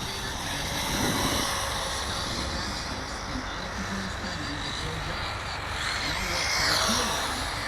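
Electric RC rally cars racing: a high motor whine over tyre noise, swelling about a second in and again near the end as a car passes close.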